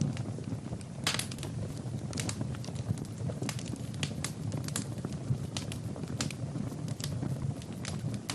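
Fire crackling in a fireplace: irregular sharp pops and snaps over a low, steady rumble of the flames.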